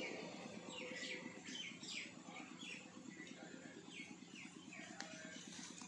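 A bird calling outdoors: a series of short, quickly falling high-pitched chirps in two bursts, over a faint steady background noise.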